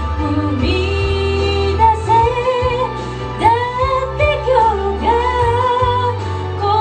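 A woman singing a song into a handheld microphone over instrumental accompaniment; her voice holds long notes and slides between them.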